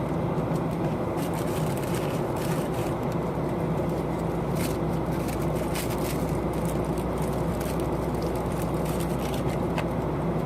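Steady airliner cabin noise: a constant rush of engine and airflow with a low hum, with a few faint ticks.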